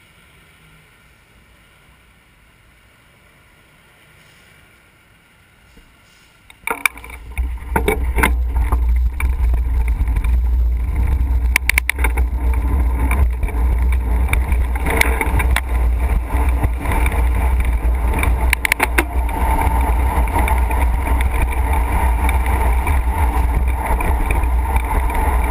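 Quiet street traffic at first; then, about a quarter of the way in, loud steady wind rumble on a bike-mounted camera's microphone takes over as the bicycle gets moving, with traffic noise under it and a few short clicks.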